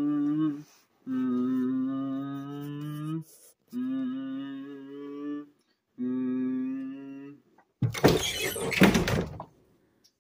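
A person humming four long, steady held notes, then, about eight seconds in, a loud clattering thunk lasting about a second and a half.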